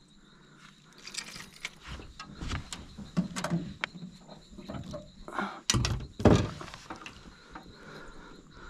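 Scattered knocks and thumps on a fishing boat as a lively peacock bass is handled, with two heavy thumps about six seconds in.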